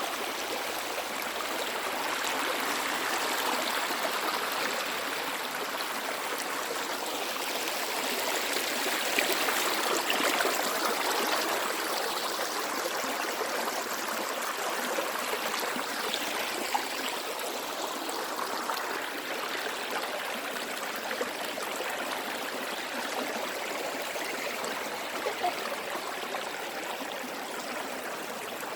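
Stream water flowing and splashing steadily, growing a little louder about a third of the way in.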